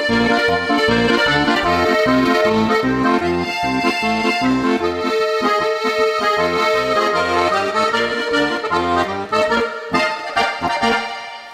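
Guerrini piano accordion playing a lively polka, the melody carried on the right-hand keyboard over a steady oom-pah of bass and chord buttons. The tune comes to its end in the last second, the sound dying away.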